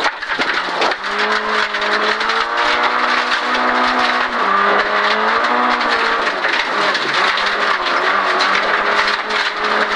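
VW Golf 16S rally car's four-cylinder engine, heard from inside the cabin, revving hard through the gears: its note climbs and drops back at each shift several times. Under it is a steady hiss and crackle of gravel from the loose stage surface.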